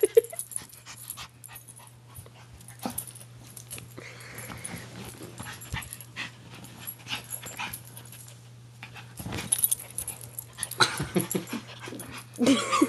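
Two Maltese dogs play-fighting: scuffling with short wheezy breaths, quieter in the middle and busier again about nine seconds in.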